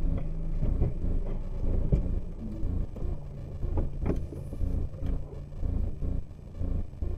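Low rumble of a car engine running, with a few sharp knocks about two and four seconds in.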